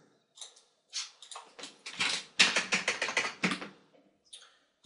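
Typing on a computer keyboard: a quick run of keystrokes that is densest a little past halfway, with one more stroke near the end.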